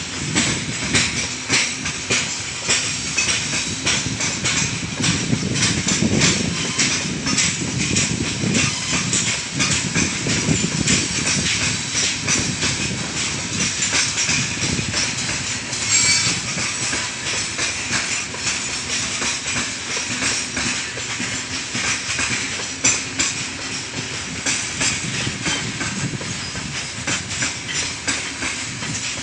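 Freight train's gondola cars rolling past, their wheels clattering over rail joints in a dense, steady stream of clicks over a high hiss. The train is running under braking.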